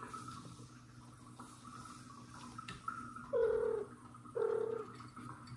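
A cat meowing twice, each meow short and about half a second long, the second following about a second after the first.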